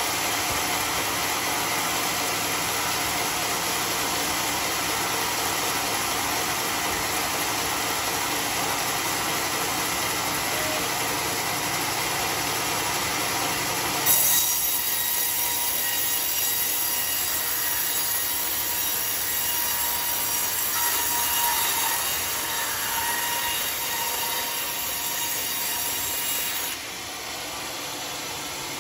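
Homemade band sawmill running, its blade cutting lengthwise through a large teak log with a steady rasping whine. The sound shifts abruptly about halfway through and drops in loudness near the end.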